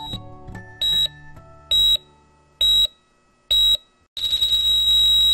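High-pitched electronic medical-device beeping: four short beeps about a second apart, then one long unbroken tone starting about four seconds in. Guitar music fades out at the very start.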